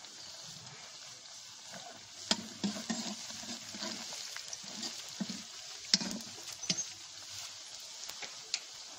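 Food sizzling as it fries in an iron kadai, with a metal ladle stirring and scraping against the pan; sharp clinks and knocks of the ladle come from about two seconds in until near the end.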